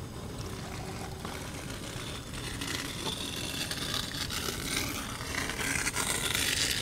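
Water pouring from a pot into a cloth coffee filter, a splashing hiss that builds over the last few seconds and is loudest near the end.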